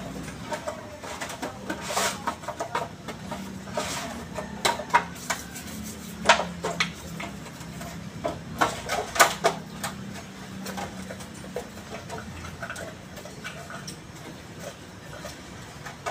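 Metal parts of a forklift starter motor clinking and knocking irregularly as they are handled and set down on a metal tray, with the sharpest knocks in the middle.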